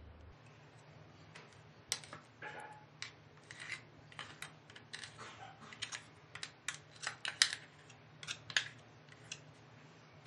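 Ground rice paste being scraped out of a mixer-grinder jar into a bowl: a series of irregular clicks, taps and short scrapes of a utensil against the jar and bowl.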